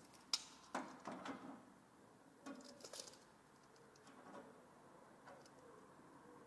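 Faint scattered clicks and rustles of a tape measure being handled against an aluminium body panel.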